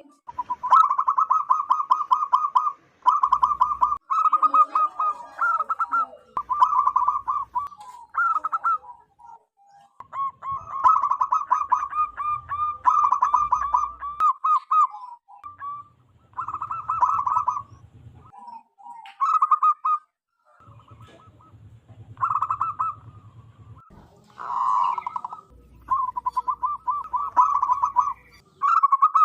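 Zebra doves (perkutut) calling: short runs of fast, stuttering coos, one phrase after another with brief gaps.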